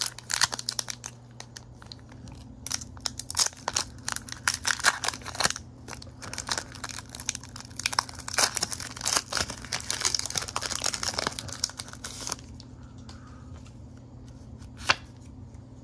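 Foil Pokémon booster-pack wrapper crinkling and tearing as it is ripped open by hand, a dense run of crackles for about twelve seconds. Then quieter handling of the cards and a single sharp click near the end, over a faint steady low hum.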